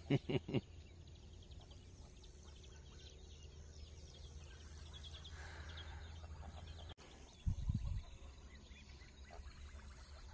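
Ducks quacking: a quick run of four short calls right at the start, then a couple more low calls about three-quarters of the way through, over faint chirping of small birds.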